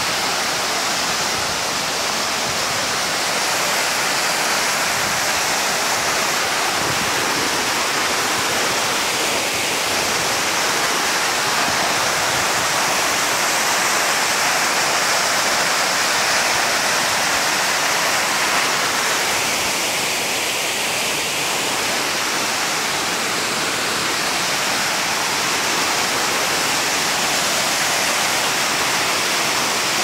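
Tortum Waterfall's water falling down the rock face close by, a loud, steady rush with no breaks.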